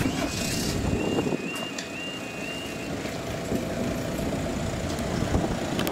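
Level crossing warning alarm sounding its two-tone yodel, then cutting off about halfway through as the half barriers rise at the end of the crossing sequence.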